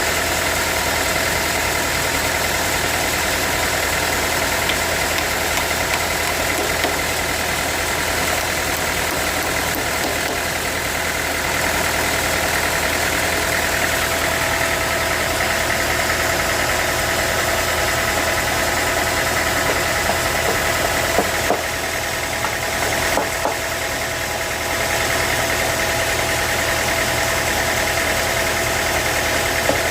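Sawmill engine running steadily, with a few brief knocks and a slight dip in level about two-thirds of the way through.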